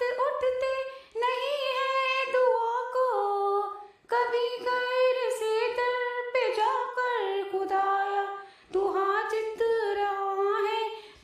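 A woman singing a naat melody unaccompanied, in four long phrases with short pauses for breath between them.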